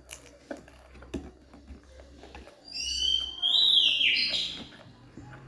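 A loud, high-pitched whistle-like call that rises and then steps down, lasting about a second and a half, preceded by a few soft clicks and taps.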